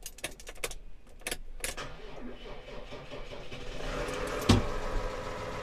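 Clicks and a key rattle, then the Case Puma 220's six-cylinder diesel engine starting: it builds up, catches with a sharp thump about four and a half seconds in, and runs steadily after.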